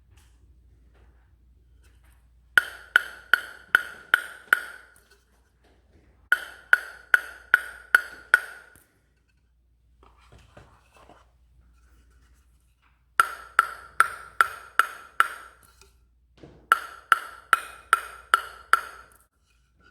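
A table tennis ball bounced repeatedly on a Tmount Kim Taek Soo ProBlade F700 blade. The bounces come in four runs of about six or seven evenly spaced hits, roughly two to three a second, each a short ringing ping.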